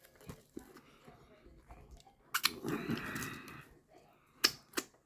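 A person chewing a sub sandwich, with mouth clicks and smacks, a short murmur or hum about halfway through, and two sharp smacks near the end.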